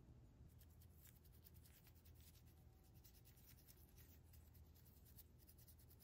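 A run of quick, faint scratchy strokes of a fine paintbrush working over a small plastic toy starship, a few strokes a second, over a low steady hum.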